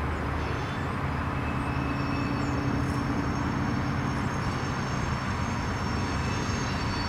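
Freight train cars rolling past in a steady rumble, with a thin high-pitched steady tone joining in about two seconds in.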